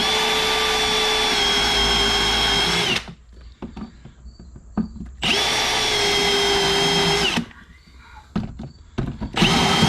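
Power drill running in three bursts at a steady pitch, a long one, a shorter one and a brief one near the end, each sagging slightly as it stops, while drilling out the fastenings that hold a door handle.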